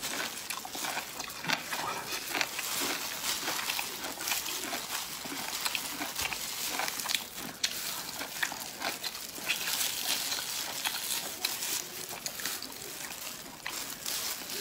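Close-up wet chewing and lip-smacking on meaty spiced ribs, with many small clicks and squelches as the meat is torn from the bone with gloved hands.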